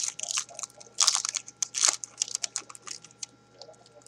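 Foil wrapper of a 2012 Topps Prime football card pack being torn open and crumpled by hand: quick sharp crackling, loudest a second or two in, then thinning out.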